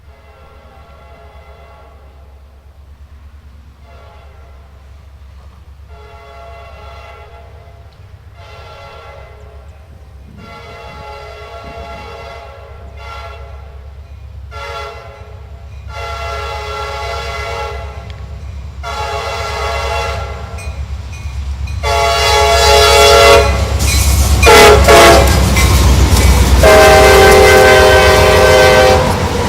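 CSX diesel locomotive's multi-chime air horn sounding a long series of blasts for grade crossings, growing louder as the train approaches, with a final long blast near the end. The locomotive's low engine rumble builds underneath as it draws close.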